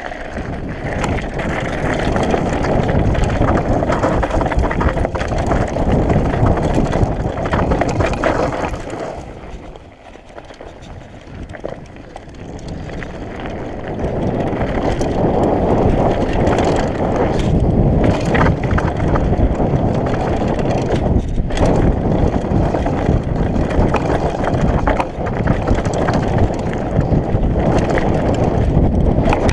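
Wind buffeting the camera's microphone and mountain-bike tyres rolling over a dirt and gravel trail on a downhill descent, with scattered knocks and rattles over bumps. The noise drops away for a few seconds about ten seconds in, then comes back louder.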